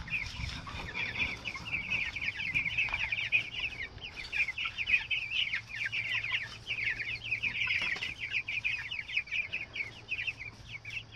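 A flock of about three-week-old meat chickens peeping continuously, many short chirps overlapping.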